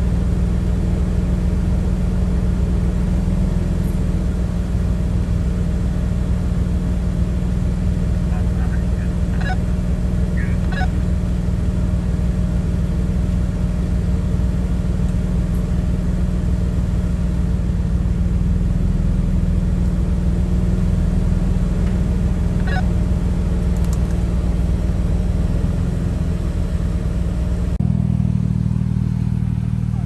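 Jeep Wrangler's engine running steadily as it crawls along an off-road trail, with a few faint squeaks and clicks; the engine note changes near the end.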